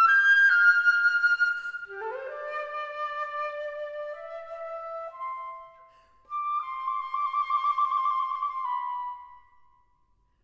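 Unaccompanied concert flute playing. A loud high phrase opens, then a phrase climbs from low notes and fades out about six seconds in. A new phrase follows with a wavering held note and dies away near the end.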